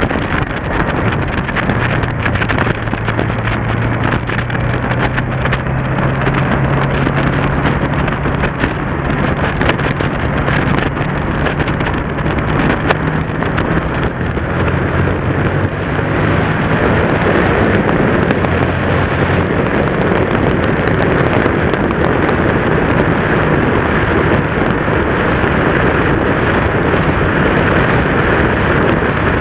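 Yamaha TDM parallel-twin motorcycle engine running at a steady cruise. Wind rush on the bike-mounted camera gets louder about halfway through and partly covers the engine note.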